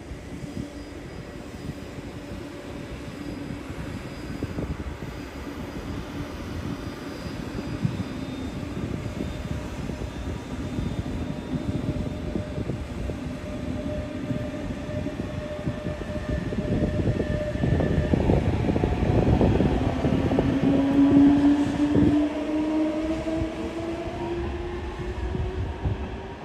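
Train moving through a station platform, its rumble growing louder toward a peak about two-thirds of the way through. A whine rises steadily in pitch over the last few seconds.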